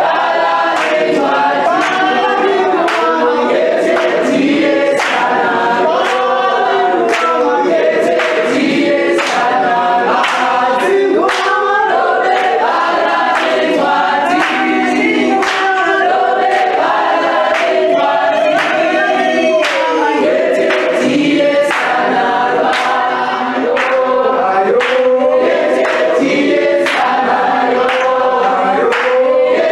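A group of voices singing a gospel song together in harmony, with no instruments, over a steady sharp beat.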